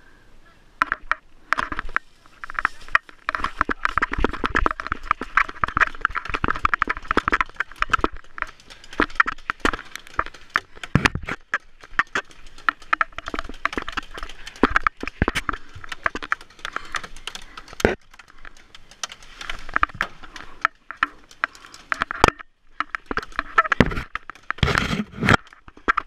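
Irregular crunching and crackling of footsteps through dry fallen leaves, mixed with clicks and knocks from handled gear and the wooden boards of a lookout tower.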